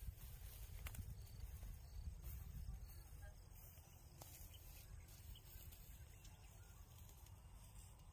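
Near silence: faint outdoor ambience with a low rumble and a couple of faint clicks.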